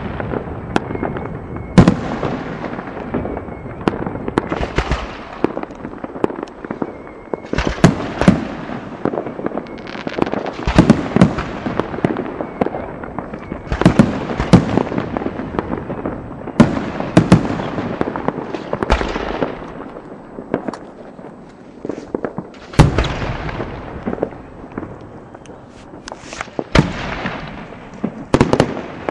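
Fireworks display: loud aerial shell bursts one after another, every second or two, each bang trailing off in a fading crackle.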